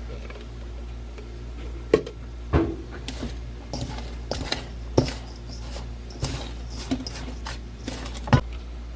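Kitchen utensils and containers knocking and scraping while dry pollen supplement and sugar are measured out and mixed: sharp knocks about two, two and a half, five and eight seconds in, with short scrapes between, over a steady low hum.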